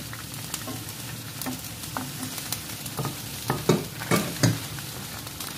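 Green peas frying and sizzling in a skillet while being stirred with a wooden spoon. A few louder knocks of the spoon against the pan come between about three and a half and four and a half seconds in.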